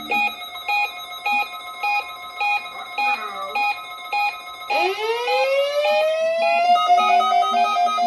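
Several NOAA weather-radio receivers sounding their alert beeps for the Required Weekly Test: a repeating beep a little under twice a second. About halfway through, a tone sweeps up and holds, and a faster beeping joins in near the end.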